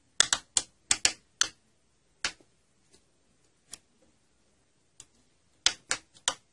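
Sharp clicks from the detented rotary knob of a Bendix King KLN 89B GPS being turned step by step to dial in letters: a quick run of about six clicks in the first second and a half, a few single clicks spaced out, then another quick run of four near the end.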